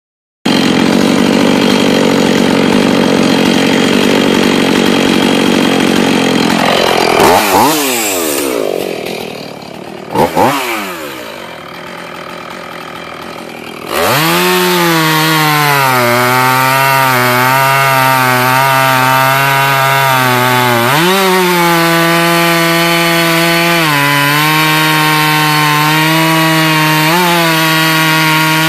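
Husqvarna 450 two-stroke chainsaw. It runs hard, then winds down about a quarter of the way in, gets a quick blip of throttle and idles more quietly. About halfway through it goes back to full throttle and cuts through a thick log, its high engine note dipping and recovering several times as the chain bites into the wood.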